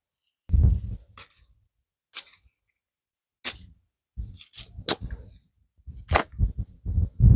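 Bean plants being picked over by hand: irregular sharp snaps and crackles with short rustles of leaves and stems, coming thicker near the end.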